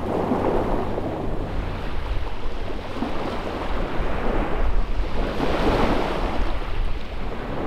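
Small waves breaking and washing onto a shingle beach, swelling twice, near the start and about six seconds in, with wind rumbling on the microphone.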